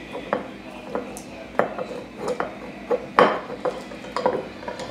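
Metal wing corkscrew clicking and scraping as it is twisted and handled on a wine bottle whose cork is stuck: a string of irregular small clicks and knocks, the loudest a little past three seconds in.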